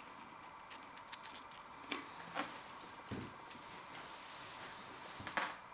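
Koikeya potato crisps being crunched and chewed: a scattered run of small crackles and clicks.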